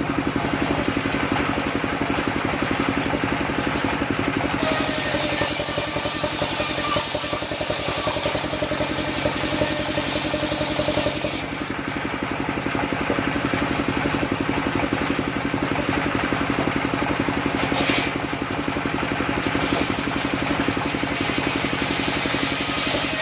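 Engine of a mobile circular sawmill running steadily with an even pulsing beat. A brighter hiss with a faint whine joins for several seconds, from about five seconds in to about eleven.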